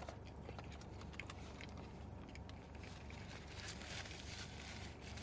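A person chewing food close to the microphone, with many small wet mouth clicks and a stretch of denser crunching and rustling about four seconds in.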